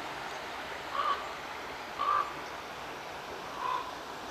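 Large soaring corvids calling: three short, hoarse croaks spaced about a second or more apart, over a steady rushing background hiss.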